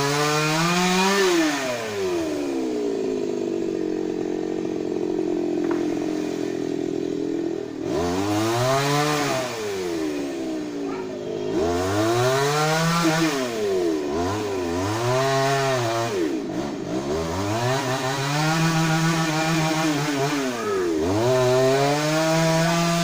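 Two-stroke chainsaw engine running hard: a steady, lower-pitched stretch early on, then revving up and down again and again every second or two, with a few stretches held at high revs.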